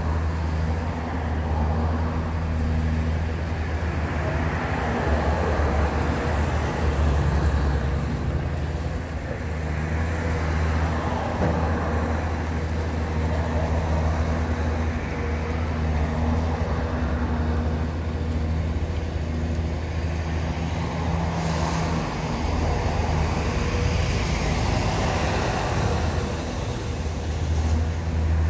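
Deep, steady drone of a heavy diesel engine running at low revs, with swells of tyre noise as cars pass on a wet street.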